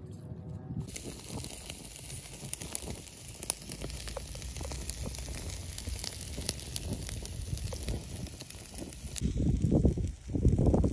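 Marinated beef ribs sizzling on a wire grill over a charcoal fire, with a steady hiss and frequent sharp crackling pops. Near the end a louder low rumbling noise takes over.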